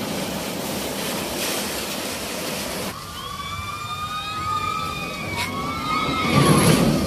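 Rushing, splashing water as riders come off a raft slide into its pool. After a cut, riders on a flume-ride boat scream as it drops down the chute, and a loud splash comes near the end as the boat hits the water.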